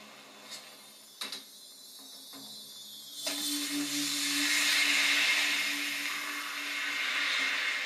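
Film sound effects heard through a television speaker: a few sharp clicks, then about three seconds in a loud rushing hiss of flame and flying sparks that builds and holds.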